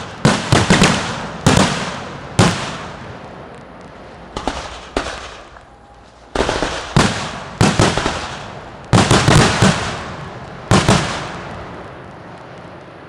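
Aerial fireworks going off in volleys of sharp bangs, each bang trailing off in a long echo. There is a lull about five seconds in, then more volleys, and the last echo dies away near the end.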